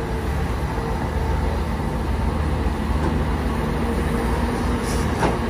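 Diesel engine of a Kobelco hydraulic crawler excavator running steadily under load as it digs soil and loads a dump truck.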